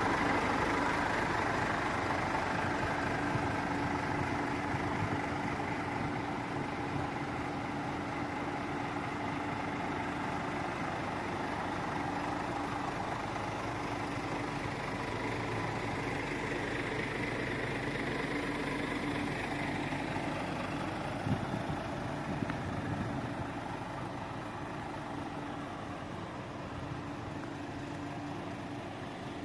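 Scania G500's 13-litre straight-six diesel idling steadily, slowly growing fainter, with a couple of short knocks about two-thirds of the way in.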